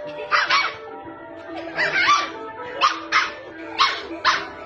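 A puppy barking: about eight short, high yaps, often two in quick succession, over background music.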